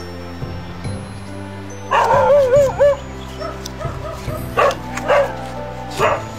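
A dog gives a wavering whine lasting about a second, then three short yips, over background music.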